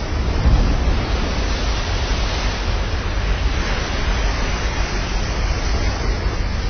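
Steady rushing roar of wind and breaking surf, with a heavy low rumble of wind buffeting the microphone.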